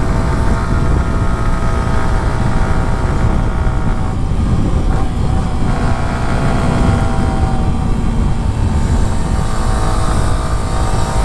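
Yamaha R15's single-cylinder engine running under way, its note mostly steady with a small dip and rise around the middle, over a heavy low wind rumble on the rider's microphone.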